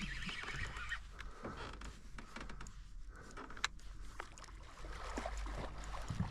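River water moving around a fishing boat, with scattered small clicks and knocks and one sharper click about three and a half seconds in.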